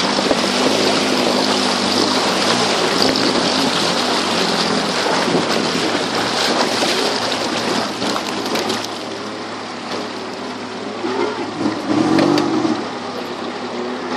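Off-road 4x4's engine running as it drives through a river, with water rushing and splashing steadily around the vehicle. The rushing is louder in the first half and eases off about two-thirds of the way through.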